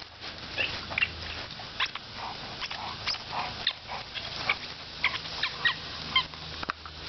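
A dog's squeaky toy ball squeaking as an Airedale Terrier bites on it: a dozen or so short, high squeaks at uneven intervals.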